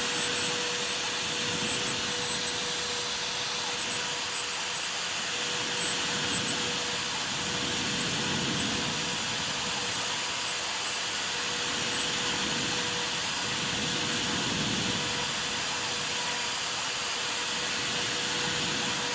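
CNC router spindle engraving into MDF: a steady whine over a hiss, with a lower cutting noise that swells and fades every couple of seconds.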